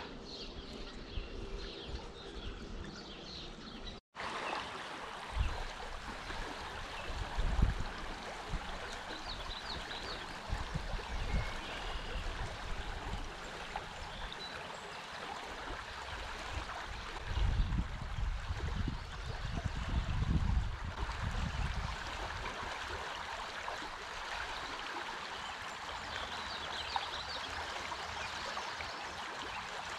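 Small creek flowing, a steady rush of water over shallow riffles, with a few low rumbles on the microphone, the biggest just past halfway.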